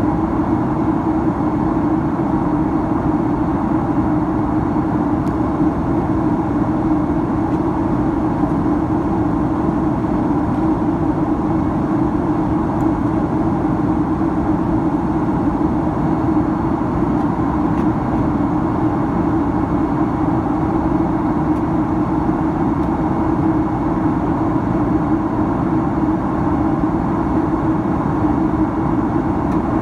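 Steady in-flight cabin noise of a Boeing 767-300ER: the constant drone of the wing-mounted turbofan engines and the rush of air over the fuselage, heard from inside the cabin, with a low hum held at one pitch.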